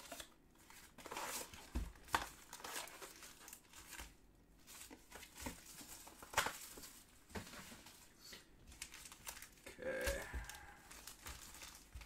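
Foil trading-card pack wrappers crinkling and tearing as a stack of packs is handled and opened, in short faint rustles with scattered light clicks.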